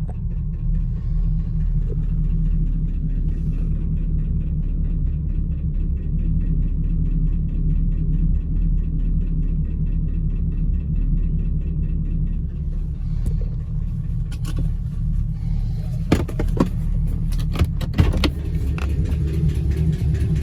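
Chevrolet Camaro SS's 6.2-litre LS3 V8 idling steadily with a fast, regular ticking over the engine note, which the owner cannot place as lifter tick or rod knock. A few sharp clicks stand out in the last few seconds.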